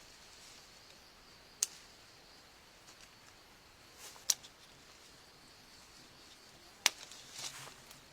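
Three sharp, short clicks or snips about two and a half seconds apart, over a low background, with soft rustling just before the second and after the third.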